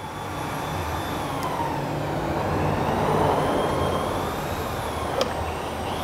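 Steady machine running: a low hum with a hiss and a faint, slowly wavering whine, and one small click about five seconds in.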